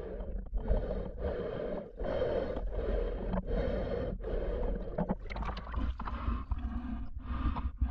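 Muffled water sloshing and rushing around the camera in repeated surges, about one a second, over a steady low rumble.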